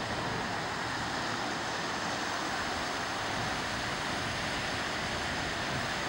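Wind on the microphone: a steady rushing noise with an uneven low rumble underneath.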